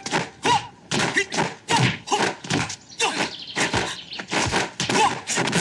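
Kung fu film fight sound effects: a rapid run of punch and block impacts, about three a second.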